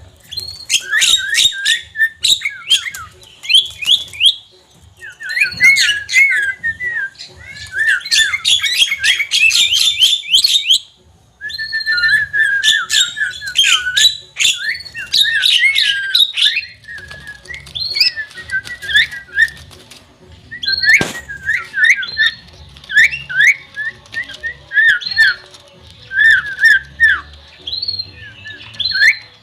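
Javan myna (jalak kebo) chattering: quick runs of short chirps and whistles, with sharp clicks mixed in and a short break partway through.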